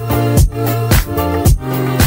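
Background music with a steady dance beat, about two beats a second, over a bassline.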